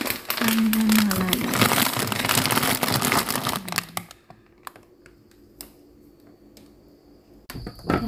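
Plastic food bags and packaging crinkling and rustling as frozen items are handled in a freezer for about four seconds, then quieter, with a steady low hum and a few faint clicks.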